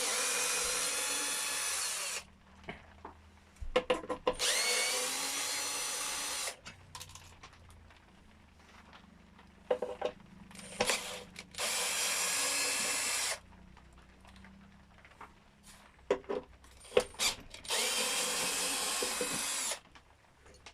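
Power screwdriver unscrewing the scooter's seat bolts: four runs of about two seconds each, each a steady motor whine. Between the runs come light clicks and handling knocks.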